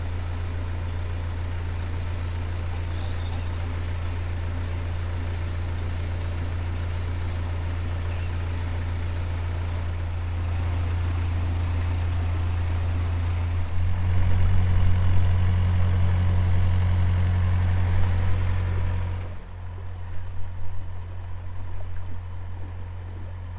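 Narrowboat engine running with a steady low hum. It picks up revs about ten seconds in and again a few seconds later, then throttles back near the end.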